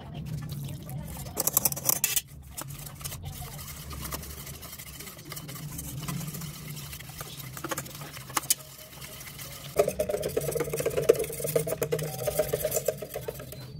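Wire whisk beating a flour, seasoning and cold-water batter in a metal pot: quick clicks and scraping against the pot, thickest about ten seconds in. A steady low hum runs underneath.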